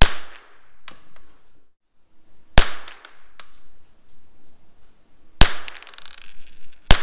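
Rossi RS22 semi-automatic .22 LR rifle firing CCI standard velocity rounds: four single shots about one and a half to three seconds apart, each crack followed by a short echo.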